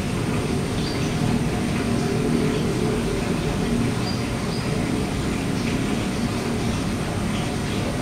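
Steady low background rumble, with a few faint, short high bird chirps about one second and four seconds in.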